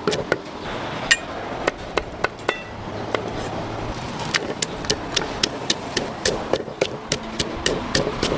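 Blade chopping at coconuts: a rapid, irregular run of sharp knocks, about three a second, over a steady background hum.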